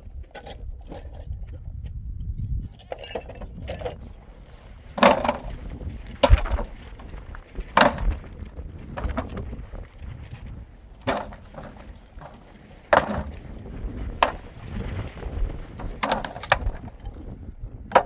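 Firewood being chopped with an axe: a series of heavy strikes on wood, one to three seconds apart, over a steady low rumble.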